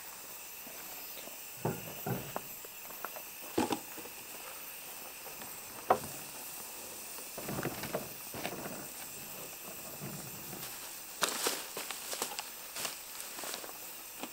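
Footsteps on gravel, then knocks and clinks of a Jetboil stove and fuel canister being handled and set down on a wooden camp table, over a steady hiss. The loudest is a single sharp knock about six seconds in, and a run of quick clicks and clatters comes near the end.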